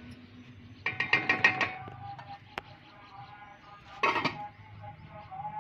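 Wooden spoon knocking several times in quick succession against an aluminium cooking pot, then the pot's metal lid clattering as it is set on, about four seconds in.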